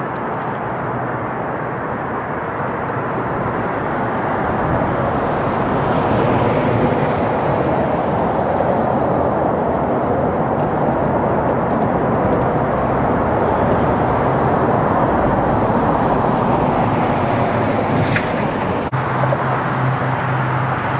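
Freeway traffic noise: a steady rush of passing vehicles that swells louder through the middle. Near the end it changes abruptly to a steadier low hum.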